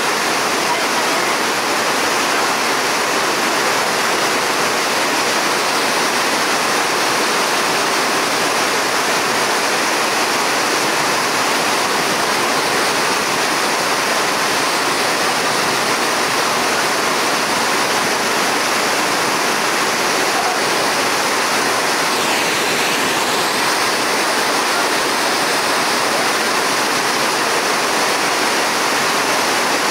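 A waterfall pouring as a broad curtain over a ledge into a churning pool, a loud, steady rush of falling water at natural speed.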